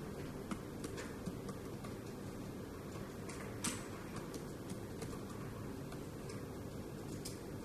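Irregular light taps of typing on a tablet's on-screen keyboard as figures are entered, one tap about halfway through louder than the rest, over a steady low background hum.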